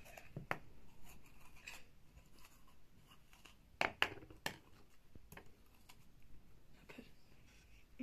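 Metal spoons scraping and clinking against a stainless steel bowl as a soft filling is scooped and pressed into hollowed vegetables: scattered small clicks, with a quick run of three louder clinks about four seconds in.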